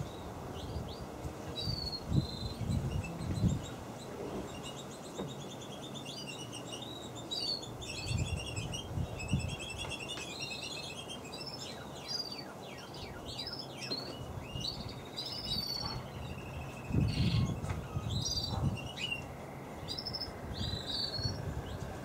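Small songbirds chirping and twittering, with quick high tweets and short trills coming again and again. A few low rumbling thumps come in between, loudest near the start and about two-thirds of the way in.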